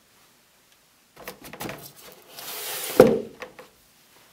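PQI 380 non-nuclear asphalt density gauge being set into its hard plastic case: a few light knocks, a short rustling slide, then a solid thump about three seconds in as it seats on the standardization plate, with a couple of light clicks after.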